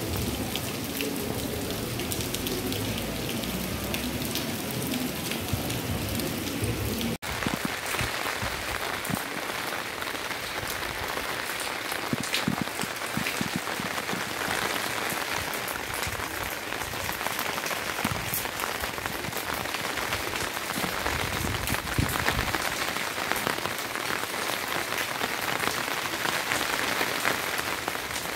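Steady rain falling. After a cut about seven seconds in, heavier rain lands on a clay-tile roof and its gutter as a dense, even hiss full of individual drop hits.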